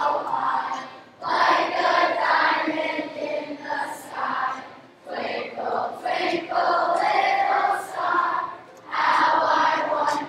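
A large group of elementary school students performing a piece in phrases of sustained notes, with short breaks between phrases about a second in, around five seconds in and near the end.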